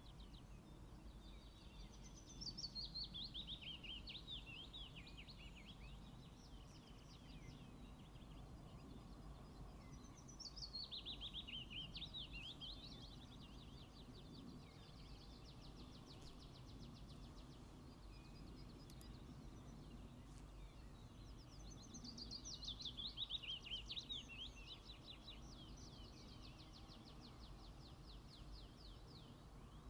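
A songbird singing: a phrase of rapid notes that falls in pitch over about three seconds, heard four times several seconds apart, with faint fast ticking between phrases, over quiet low background noise.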